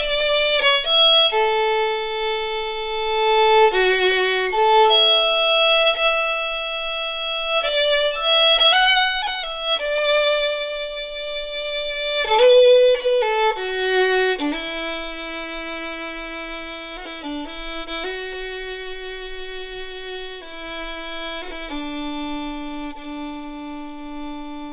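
Solo fiddle playing a slow melody of held notes with quick ornaments between them; from about halfway the notes drop lower, are held longer and grow quieter.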